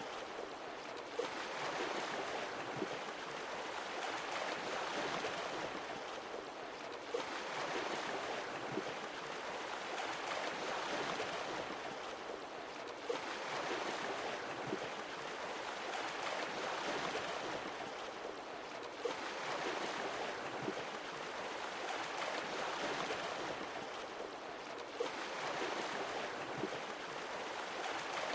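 Sea waves washing onto a shore, a new wave arriving about every six seconds with a sudden splash and then a long fading wash.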